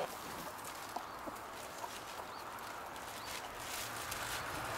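Backyard chickens in a run, a few faint short clucks over a steady outdoor background hiss.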